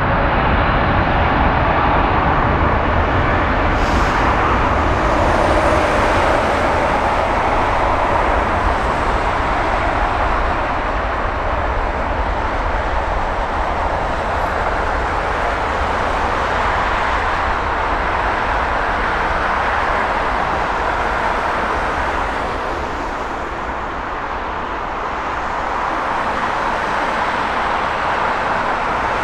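Jet airliner engine noise, a loud, steady rushing roar that eases a little about three-quarters of the way through and then builds again.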